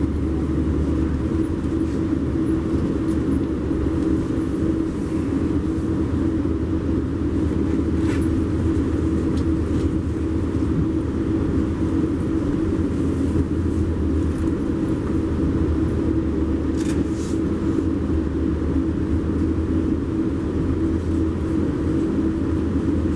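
Inside a Metrolink commuter coach rolling slowly into the station: a steady low rumble with a constant hum.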